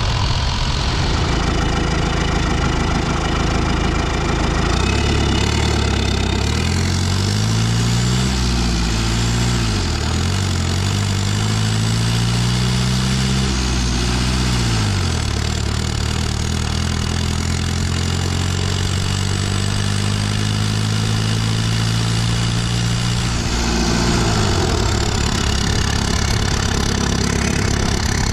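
Cummins 4BT 3.9-litre four-cylinder turbo-diesel running on the road under load. The revs climb and drop twice, then hold steady and drop again near the end, with a faint high turbo whistle rising and falling above the engine note.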